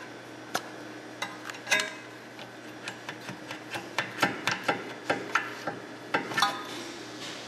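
Metal parts of a rear brake caliper clicking and clinking as it is handled and worked off its mounting by hand: irregular sharp clicks, some ringing briefly, coming thickest in the second half.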